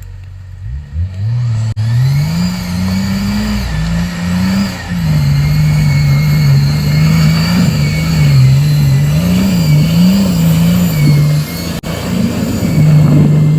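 Off-road vehicle's engine revving: the engine note climbs over the first few seconds, then holds at high revs with repeated small rises and dips. The revs drop briefly near the end and then come back up.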